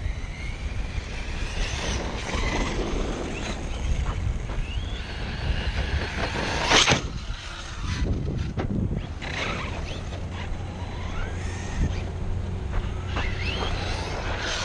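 Electric RC monster truck motor whining, rising and falling in pitch as it is throttled over the dirt, with one sharp knock about seven seconds in. Wind rumble on the microphone underneath.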